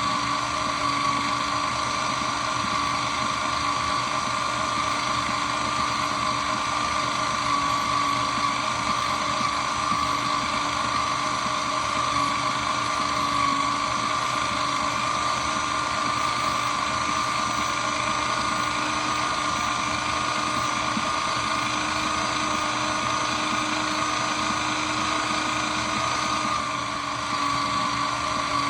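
Shredder machine running steadily with no load, a continuous motor whine and hum.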